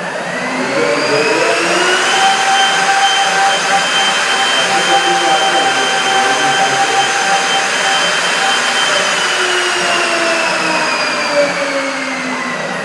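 CNC router running a cutting program: a steady machine noise with a whine that rises in pitch over the first couple of seconds, holds steady, then slowly falls away over the last few seconds.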